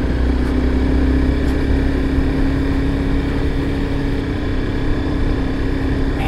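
Motorcycle engine running at a steady pitch while cruising, with road and wind noise.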